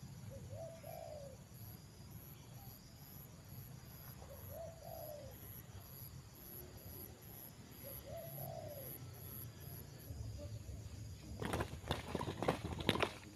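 Spotted dove (tekukur) cooing: three short coo phrases about three to four seconds apart. Near the end comes a loud burst of wing flapping and rustling as the lured dove is caught.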